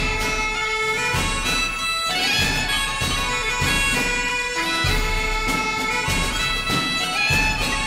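Music: a held, stepping melody on a wind instrument over a recurring low drum beat.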